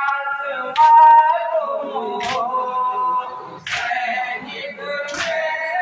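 A male voice chanting a noha, a Shia Muharram lament, unaccompanied. Sharp hand slaps of matam (chest-beating) fall in time with it about every one and a half seconds, four in all.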